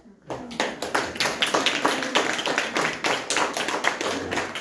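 Small audience applauding, many separate hand claps starting abruptly just after a children's song ends.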